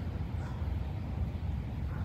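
Steady, uneven low rumble of wind on the microphone inside a tent, with a few faint short chirps above it.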